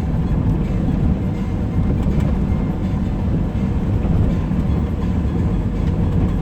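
Steady road noise inside a moving car's cabin: a continuous low rumble of tyres on wet pavement and the engine.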